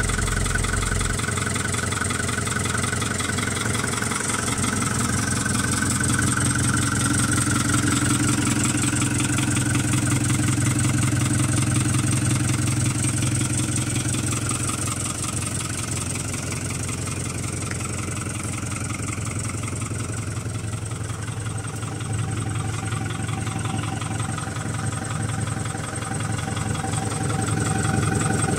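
Ford New Holland 4835 tractor's four-cylinder diesel engine idling steadily.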